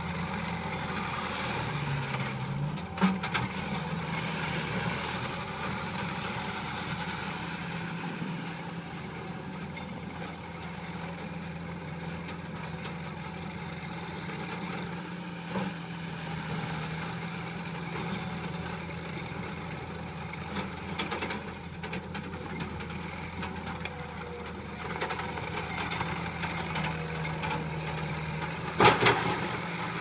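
Takeuchi TL130 compact track loader's diesel engine running steadily as the machine drives and raises its loader arms, with a loud clank about three seconds in and another near the end.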